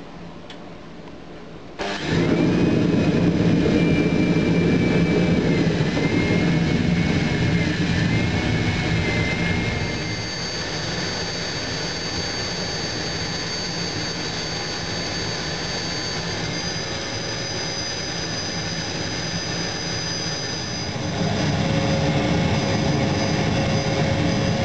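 Metal-melting furnace burner starting up about two seconds in and running with a loud, steady rushing noise and a faint whine over it. The noise eases a little about ten seconds in and grows louder again near the end.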